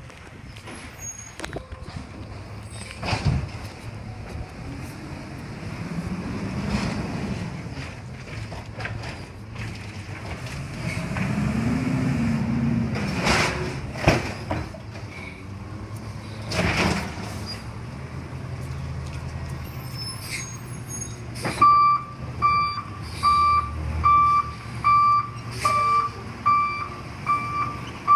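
Automated side-loader garbage truck: its diesel engine revs up and down twice, with several short air-brake hisses, and near the end its reversing alarm starts beeping, about three beeps every two seconds.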